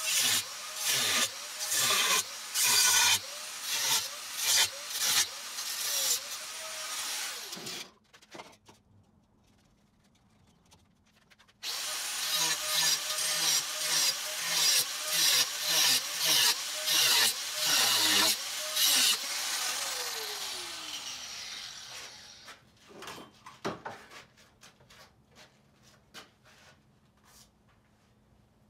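Hand-held electric power tool working metal in repeated passes, played back fast-forwarded. It stops for a few seconds partway through, runs again, then winds down with a falling pitch and goes quiet apart from a few light clicks.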